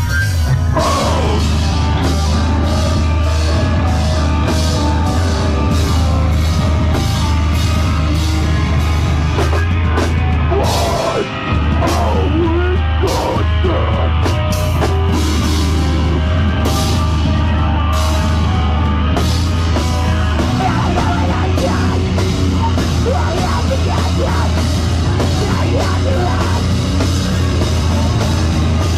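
Loud live heavy rock band playing electric guitars, bass and drum kit, with one short break in the music about eleven seconds in.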